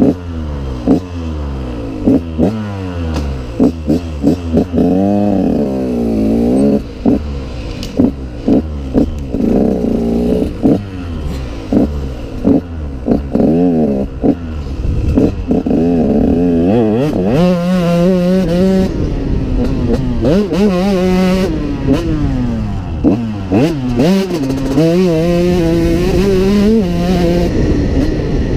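KTM 150SX two-stroke single-cylinder engine revving up and falling back over and over as the bike is ridden and shifted through the gears, with many short thumps over it.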